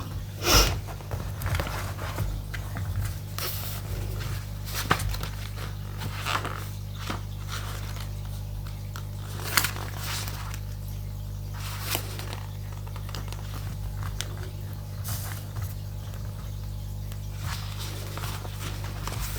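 Scattered small rustles and sharp clicks of handling, the loudest about half a second in, over a steady low electrical hum.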